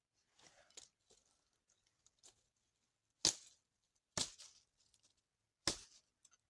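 Light rustling, then three sharp knocks spaced about a second apart.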